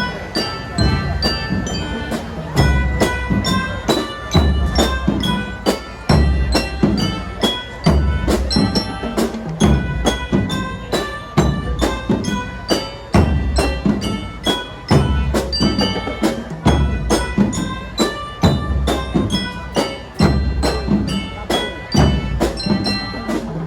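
Marching band (fanfare) playing a piece: sustained pitched melody with bright bell-like mallet percussion over drums, with heavy low drum hits recurring regularly.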